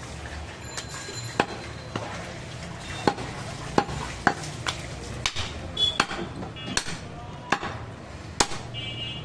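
A large butcher's knife chopping goat meat on a wooden log chopping block: about a dozen sharp knocks, irregularly spaced, as the blade cuts through the meat into the wood.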